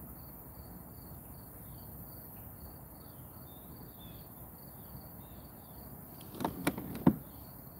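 Insects chirping steadily, about three short high chirps a second, over a low outdoor hiss. A few loud sharp knocks come about six and a half to seven seconds in.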